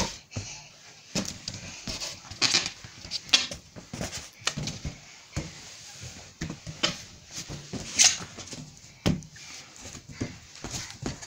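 Irregular short bumps, rustles and rubbery squeaks of inflated balloons being knocked about and squashed on a bed by a small child.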